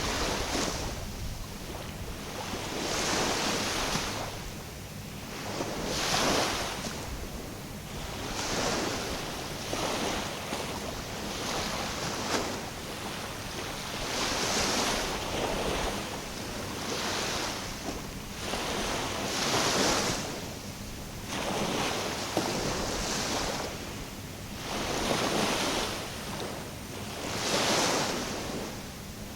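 Small sea waves washing in and breaking on the shore, one swell every two to three seconds.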